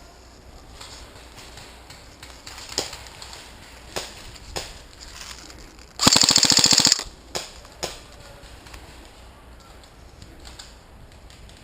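Airsoft electric guns (AEGs) firing: three separate single shots, then a loud full-auto burst of about a second some six seconds in, then two more single shots.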